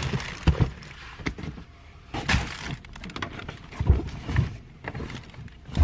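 Bags being loaded and shifted around on a car seat: a run of irregular thumps and knocks with rustling in between.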